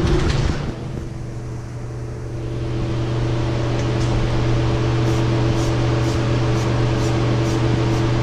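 Steady mechanical hum with a low drone and several steady higher tones, growing louder about three seconds in. A short rushing noise comes at the very start, and from about halfway through there is a faint high ticking about twice a second.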